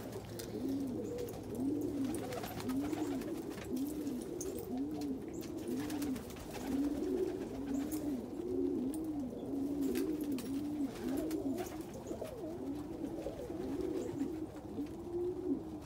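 Domestic pigeons cooing: a steady run of short coos, each rising and falling in pitch, about two a second, with several birds overlapping in the middle of the stretch.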